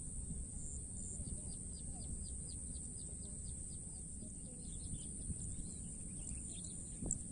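A small bird calling in a quick, even run of short high chirps, several a second, over a steady low rumble.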